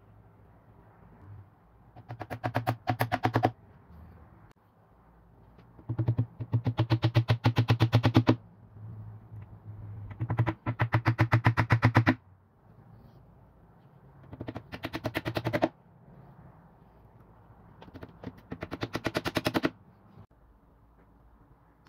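Power screwdriver driving small screws through black metal corner brackets into a wooden chest, in five bursts of rapid clatter that grow louder as each screw seats.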